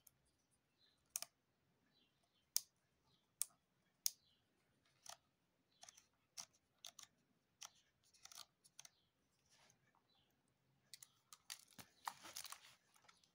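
Porst Compact-Reflex M42 film SLR body being worked by hand: a series of sharp, separate mechanical clicks from its controls, spaced about half a second to a second apart, then a quick cluster of clicks with handling noise near the end.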